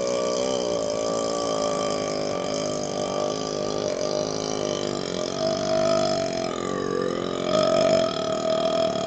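A man's very long belch brought up by chugging carbonated Pepsi: one unbroken, pitched burp whose pitch wavers throughout, with a higher tone coming in about halfway through.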